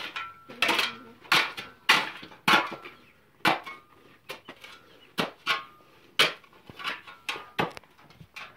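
Shovel blade scraping and striking stony gravel ground in repeated strokes, each a short gritty crunch, about one to two a second at an uneven pace.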